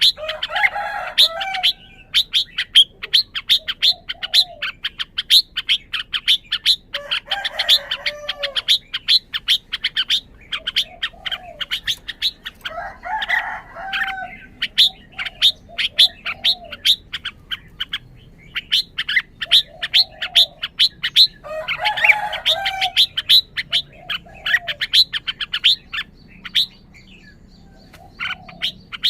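Red-whiskered bulbul singing short warbled phrases every few seconds, over a fast, steady run of sharp high chirps, several a second, that pauses briefly near the end.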